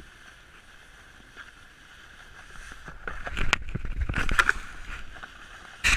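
Snowboard sliding and scraping over crusty snow, heard through a board-rider's action camera. It is quiet and steady at first, then grows louder and rougher about halfway through with scraping and knocks, and ends in a loud thump.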